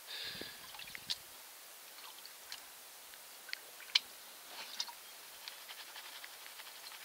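Water sloshing as a plastic gold pan of fine sand is dipped and tilted in a tub of water, then scattered drips and light ticks. The sharpest tick comes about four seconds in.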